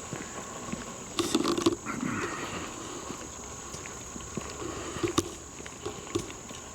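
Footsteps on a woodland trail and handling noise from a handheld camera: a cluster of knocks with a rough low burst about a second in, scattered rustles, and a single sharp click about five seconds in. A steady high-pitched hum runs underneath.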